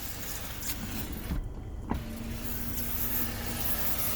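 Kia K5 power window moving the untreated glass, which rubs and squeaks in the door seals: it runs, pauses briefly, then starts again with a click and a steady motor hum. The squeak comes from the glass edges, not the rubber seals, in the owner's view.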